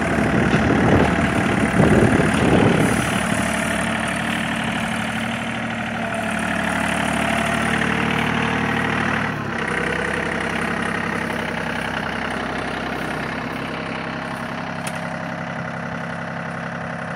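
John Deere 3320 compact tractor's three-cylinder diesel engine running as the tractor moves slowly across grass. It is louder for the first three seconds, then runs steadily and a little quieter from about halfway on.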